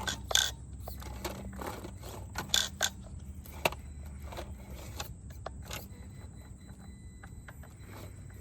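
Small-scale Traxxas TRX-4M RC crawler picking its way over rocks: irregular clicks, knocks and scrapes of its tyres and plastic parts on the rock, over a faint steady motor hum. The knocks are thickest in the first three seconds and thin out later.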